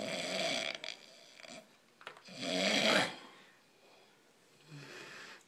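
Snoring in slow breaths: a loud snore at the start, a louder one from about two to three seconds in, and a softer breath near the end.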